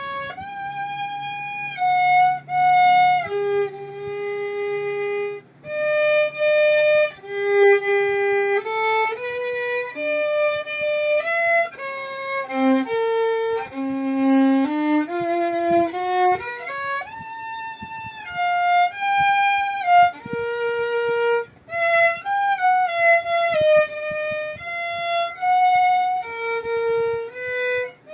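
Solo violin, bowed, playing a melody one note at a time: mostly held notes with a few short slides in pitch between them.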